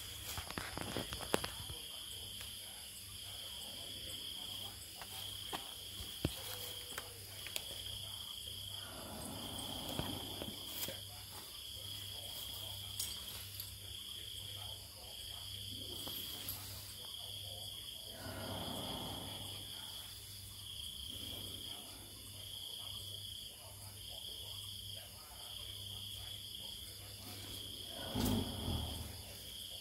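Night insects chirping in a steady pulse a little more often than once a second, over a continuous higher buzz. Three slow, breathy swells come about nine seconds apart, the loudest near the end: the snoring breaths of a sleeping elephant.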